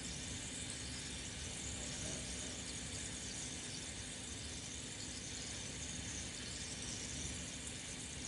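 Steady running noise of a home aquarium: an even, watery hiss with a faint steady hum underneath.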